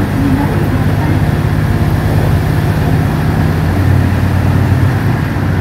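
Ise Railway Ise-III type diesel railcar running, heard from inside the passenger cabin: a steady low diesel engine drone over wheel and running noise. About four seconds in the engine note shifts a little.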